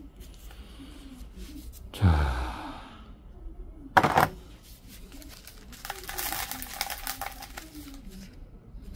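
Hand tools and a plastic nursery pot being handled over a metal work tray. There is a loud knock about two seconds in, a sharp clatter about two seconds later, then a stretch of scraping and rustling.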